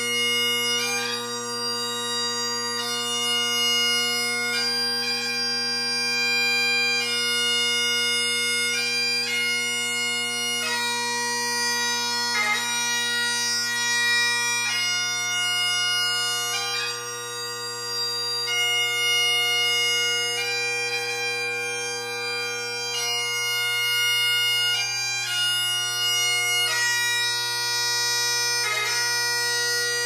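Great Highland bagpipe playing a slow piobaireachd ground: steady drones under a chanter melody of long held notes joined by quick grace-note flourishes. The pipe holds a nice sound late in the performance, though not perfectly locked in tune.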